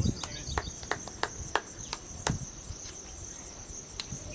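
Insects trilling in a steady high pulsing drone, with several sharp clicks scattered through it over a low rumble.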